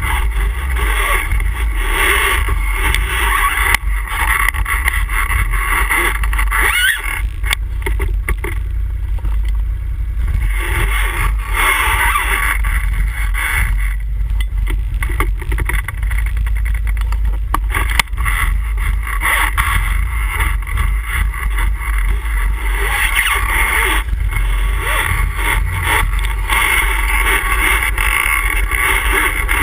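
ATV engine running under way on a trail ride, its revs swelling and easing, over a constant low rumble. A couple of sharp knocks stand out, about four seconds in and near the middle.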